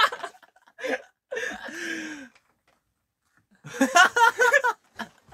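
Two young men laughing in short bursts, with a pause of near silence between them in the middle.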